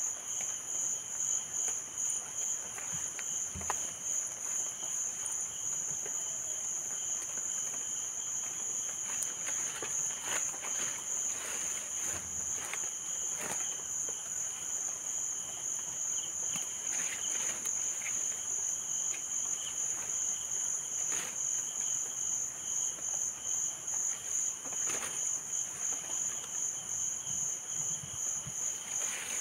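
Steady, high-pitched insect chorus, a fast-pulsing trill that does not let up. Faint scraping and rustling of hands working loose soil can be heard now and then.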